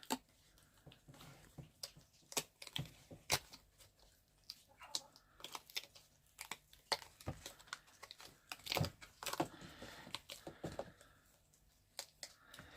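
Silicone mould being flexed and peeled off a cured resin casting, with irregular sharp clicks and taps of the hard resin piece against the rubber and the work surface, and short rustling, tearing-like scrapes between them.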